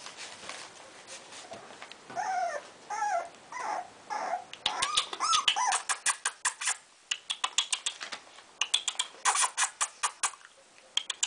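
Blue-nose pit bull puppies whimpering and squealing, a string of short wavering cries from about two seconds in. From about the middle on, rapid runs of sharp clicks and scratches, several a second, as the puppies scramble and wrestle.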